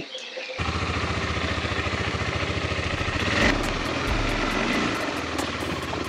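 KTM 390 Adventure's single-cylinder engine running steadily at low revs, its low note growing stronger about three and a half seconds in.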